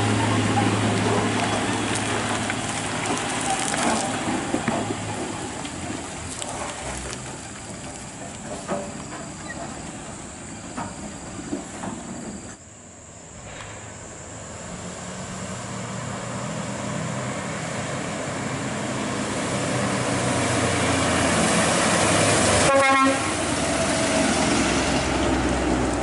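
Heavy diesel trucks running. First a low-loader rumbles past close by; then a Scania truck hauling an excavator comes up the road, growing louder as it approaches.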